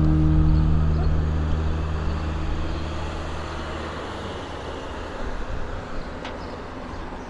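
A motor vehicle passing on the street and driving away, its engine hum and tyre noise fading slowly, with a light click about six seconds in.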